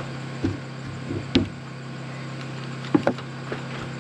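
Lumber knocking and bumping as framing boards are handled, a few sharp knocks with the loudest about a second and a half in and a quick pair near the end, over a steady low hum.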